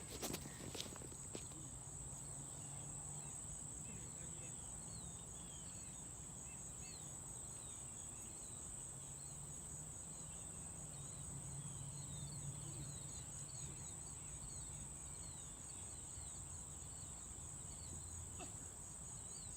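Faint outdoor ambience: a steady high-pitched insect drone with birds chirping over and over, and a few faint knocks about a second in.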